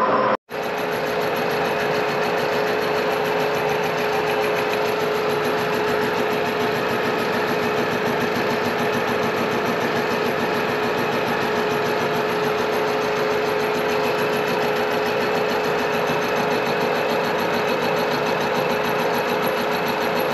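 Milling machine face-milling a welded steel block: steady machine running and cutting with a constant hum, after a brief dropout about half a second in.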